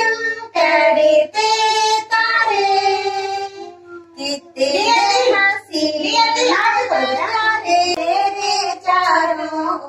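Small children singing together in a group, with a woman's voice leading them, as in an action song with a teacher.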